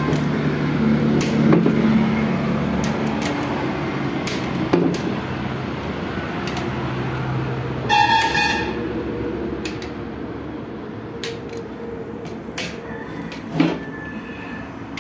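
Scattered sharp metal clicks and clinks of a wrench tightening the main bearing cap bolts on a tractor engine block, over a steady low hum of an engine running in the background that fades out about seven seconds in. A vehicle horn sounds briefly about eight seconds in.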